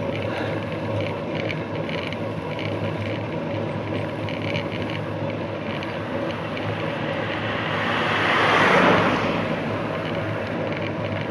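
Steady wind and tyre noise on a bicycle-mounted camera's microphone while riding, with an oncoming car swelling up and passing about eight to nine seconds in.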